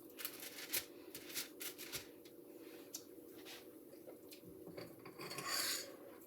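Faint, scattered clicks and taps of small kitchen handling, as candy mixture is worked with hands and a spoon, over a steady low hum. A short rustling hiss comes near the end.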